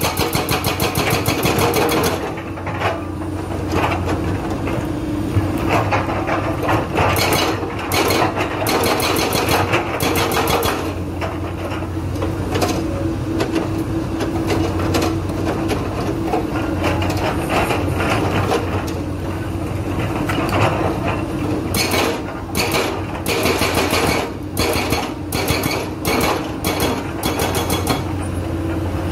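Diesel engine of a heavy excavator running steadily while a hydraulic breaker hammers with rapid, evenly spaced blows. The hammering comes in several spells with pauses between them: one at the start, one in the middle and a longer one near the end.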